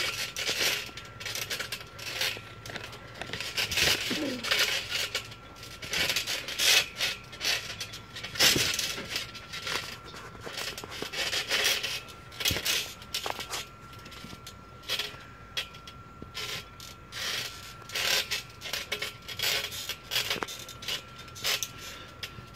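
Trampoline springs and frame creaking and clinking irregularly as two people wrestle on the mat, with a few heavier thuds of bodies landing on it, over a faint steady high tone.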